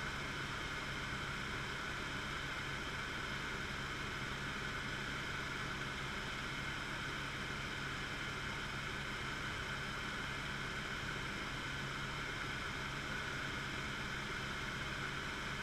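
Helicopter cabin noise in steady cruise flight, heard from inside the cockpit: the engine and rotor make a constant hum with several steady tones over an even hiss.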